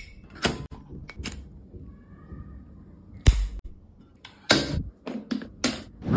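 Metal clicks and clacks from an oversized flip-top lighter being lit and its lid snapped shut. The loudest is a single sharp clack a little over three seconds in, and a quick run of clicks follows near the end.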